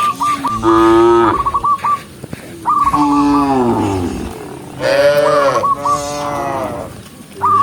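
A cow mooing repeatedly: three long, drawn-out moos, each falling away at the end. A short rapid trill sounds several times between them.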